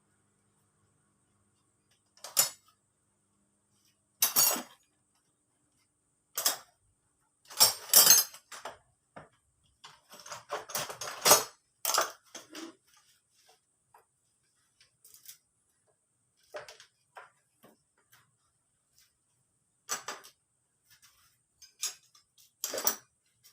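Metal tools and engine parts clinking and clattering as they are handled and set down, in irregular knocks with the busiest, loudest cluster in the middle.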